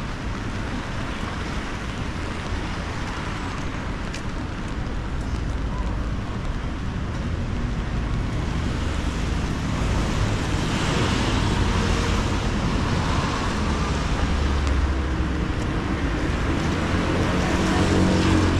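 Traffic on a rain-wet city street: cars and vans passing with tyres hissing on the wet road and engines rumbling, a steady noise that grows louder about halfway through as vehicles pass close.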